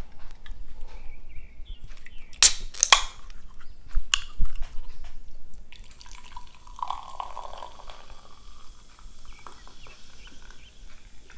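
A can of orange drink is opened with two sharp cracks about two and a half seconds in, followed by a couple of soft knocks. From about halfway through, the drink is poured from the can into a glass, splashing and hissing as the glass fills.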